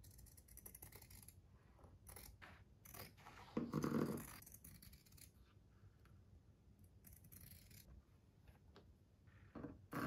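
Fabric shears snipping through Alcantara microfibre suede, a run of short crisp cuts. About four seconds in, a louder rustling burst as the material is handled.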